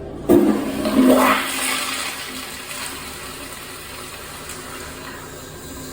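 Kohler pressure-assist toilet flushing: a sudden loud blast of water starts about a third of a second in, surges again about a second in, and dies down within two seconds into a steady quieter hiss of refilling.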